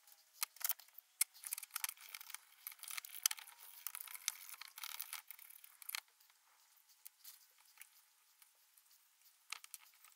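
Toothbrush bristles scrubbing a small metal drill press part in a tub of soapy water: a fast run of scratchy, wet strokes for about six seconds, then much quieter, with a couple of faint clicks near the end.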